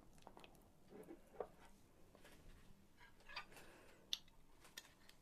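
Faint, scattered clicks and light scrapes of metal spoons against a ceramic bowl while scooping and shaping soft frozen fruit sorbet. The sharpest clicks come about a second and a half in, and again between three and four seconds in.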